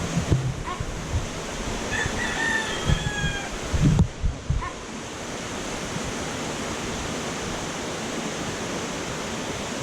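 Fast-flowing river rushing steadily, its current strong. A rooster crows once about two seconds in, and a few low thumps sound around four seconds in.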